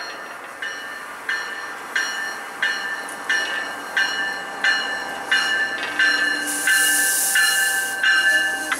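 Long Island Rail Road diesel push-pull train arriving cab car first, its bell ringing about one and a half strikes a second and growing louder as it draws near. A burst of hiss comes near the end.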